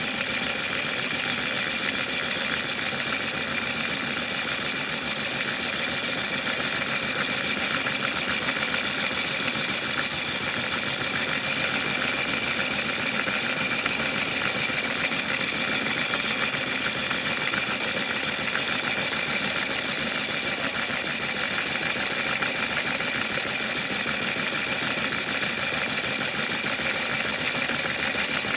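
Washing machine running with a big rock in the drum: a steady, unbroken mechanical din with a constant high whine.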